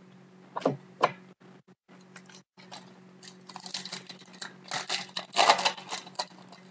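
Foil wrapper of a 2011-12 Pinnacle hockey card pack crinkling and tearing as it is opened by hand, in a run of crisp crackles loudest about two-thirds of the way through. Two short sharp taps come about half a second and a second in.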